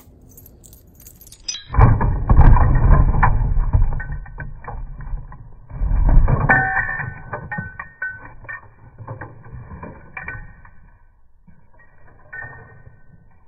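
A plastic shopping basket clattering and rattling as a dog grabs it by the handles, with the dog's paws knocking on the plastic table close to the microphone. Loud clatter from about two seconds in until about eight seconds, then a few fainter knocks.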